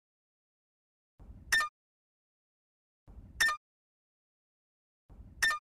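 Countdown-timer sound effect: a soft low rumble followed by a sharp, bright tick, repeating about every two seconds, three times, with silence in between.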